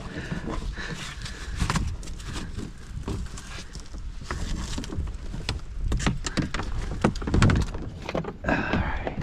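Hand-operated manual bilge pump being worked in a folding kayak: a run of uneven pumping strokes and knocks, about one or two a second.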